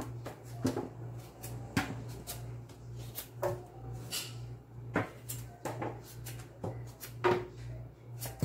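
Small kitchen knife peeling the skin off a taro corm by hand: irregular short clicks and scrapes of the blade against the tuber, several each second. A steady low hum runs underneath.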